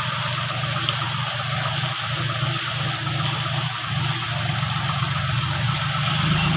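John Deere tractor's diesel engine running steadily under load while its rear rotary tiller churns through a flooded, muddy field, with water sloshing. It grows a little louder near the end as the tractor comes closer.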